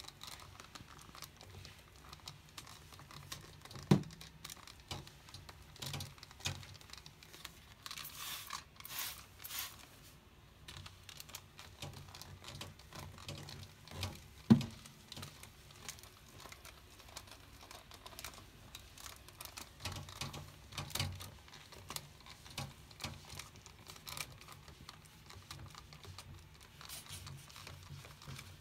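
Spraying and wiping a bathroom mirror: trigger spray-bottle hisses, a cloth-padded window-cleaning tool rubbing and clicking against the glass, and two sharp knocks, about four seconds in and near the middle.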